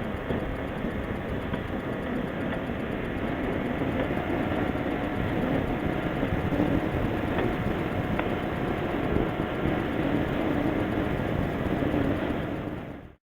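Snowmobile running along a trail: steady engine and track noise, fading out near the end.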